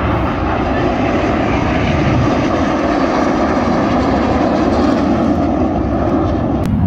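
Jet engines of a formation of aerobatic display jets passing overhead: a loud, steady rushing jet noise. A click and an abrupt change come near the end.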